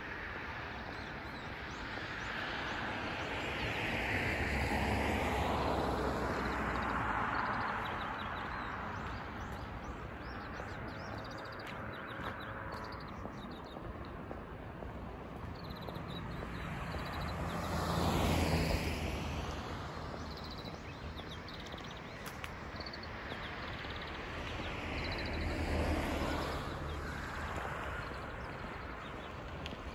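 Road traffic: cars passing one at a time on a road close by, each swelling and then fading over a few seconds. There are three passes, the loudest about 18 seconds in.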